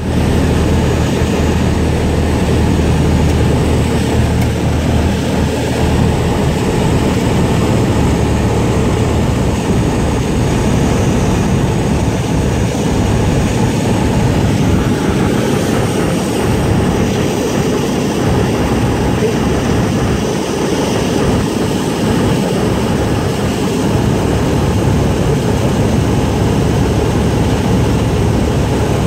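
Light propeller airplane heard from inside the cabin, its engine and propeller making a steady drone with a low hum under an even rushing hiss, as it descends to land.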